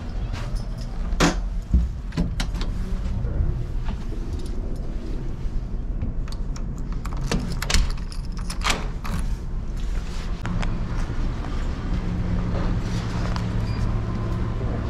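A cabin door on a ferry is opened and shut, and its lock is worked with a key, giving sharp clicks and knocks near the start and again around 8 seconds. Under them is the steady low hum of the ship's machinery, which grows a little louder later on.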